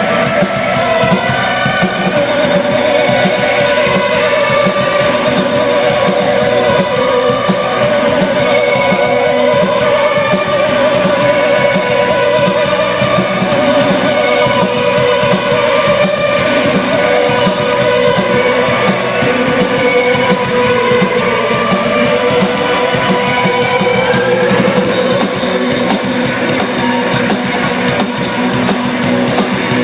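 Rock band playing live, loud and continuous: electric guitars and drum kit, with long wavering guitar tones held over the band.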